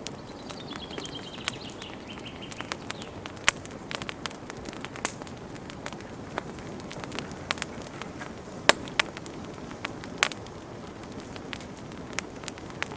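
Campfire crackling, with sharp pops and snaps scattered irregularly over a steady low rustle, a couple of louder pops in the second half. A thin whistle slides down in pitch during the first few seconds.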